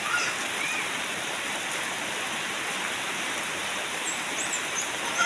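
Heavy rain falling steadily: an even hiss of rain pouring onto the wet ground and puddles.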